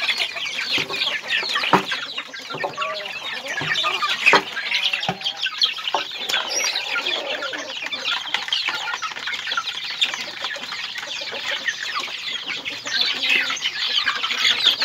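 A flock of native chickens of mixed ages clucking and cheeping, many short high calls overlapping without a break. A few sharp taps stand out in the first five seconds.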